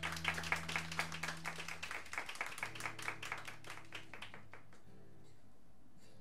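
A small audience clapping, the claps thinning out and stopping about four and a half seconds in. Under it is a low steady tone that shifts pitch about two and a half seconds in.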